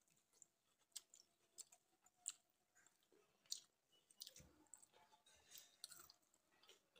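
Faint eating sounds: fingers mixing panta bhat, rice soaked in water, in a steel bowl, then chewing, with scattered soft wet clicks.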